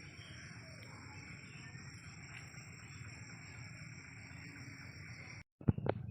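Steady high-pitched insect chorus over a low outdoor rumble. Near the end it cuts out abruptly, then a few sharp knocks follow.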